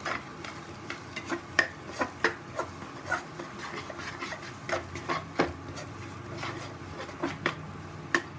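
Metal spatula scraping and knocking against a nonstick pan while stirring ground spices into fried onions, with irregular clicks and scrapes every half second or so.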